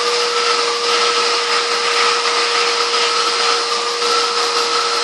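Hoover vacuum cleaner running steadily with its pet hair attachment, a constant whine over a rushing hiss, with a higher tone that drifts slightly up and down.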